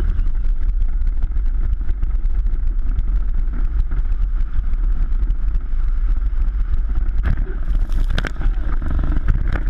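Car driven hard across a dirt track, heard from inside: a heavy, steady rumble of engine and wind buffeting, with many small knocks and rattles. Between about seven and eight and a half seconds in come several loud crashes as the car rolls over onto its side.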